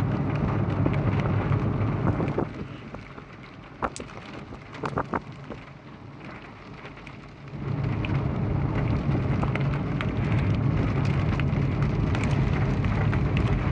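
Wind and road noise from a moving vehicle: a steady rushing rumble that drops away for a few seconds in the middle, with a few sharp taps, then comes back.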